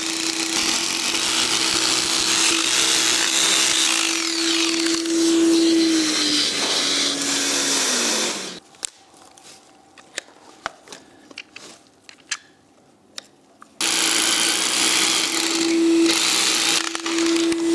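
Rotary hammer drill boring anchor holes into the concrete floor through the lift column's base plate, with a vacuum cleaner sucking dust from a hole. The noise stops about eight and a half seconds in, leaving a few knocks of handling, and the drilling starts again about fourteen seconds in.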